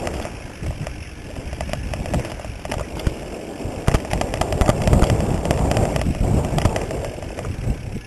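Mountain bike rolling fast down a rough dirt singletrack: quick, irregular clicks and knocks from the bike rattling over bumps, over a low rumble that swells about halfway through.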